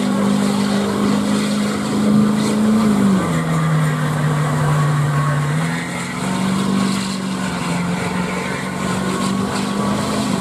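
Pickup truck engine held at high revs while its wheels spin in deep mud. The revs drop about three seconds in and climb back up around six seconds.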